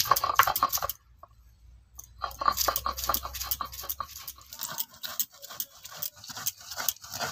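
Stone roller rubbed back and forth on a stone grinding slab (shil-nora), crushing dry-roasted whole spices with dried red chillies into powder: a rhythmic gritty rasp of several strokes a second, with a pause about a second in.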